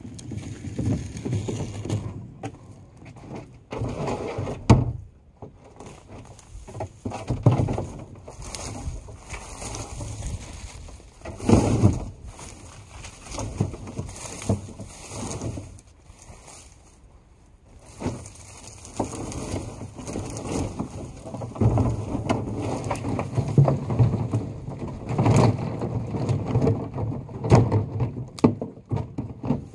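Dry sticks and pine needles rustling and crackling as gloved hands gather them up off the forest floor, with irregular louder knocks as sticks are handled.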